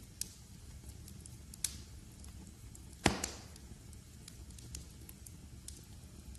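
Wood fire burning in a fireplace: a steady low rumble with scattered light crackles and one loud sharp pop about halfway through.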